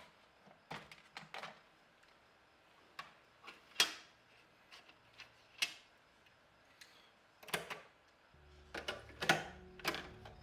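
Sharp plastic clicks and clacks of a cassette tape being handled and loaded into a cassette player. About eight seconds in, the player starts and a low steady hum of tape playback sets in.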